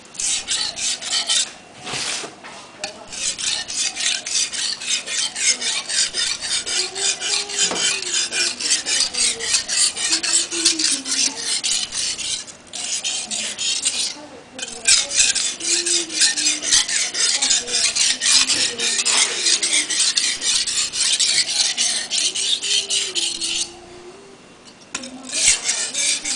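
Steel chef's knife blade being stroked back and forth on a wet whetstone: a quick, continuous run of scraping strokes, broken by a few short pauses and a longer one near the end.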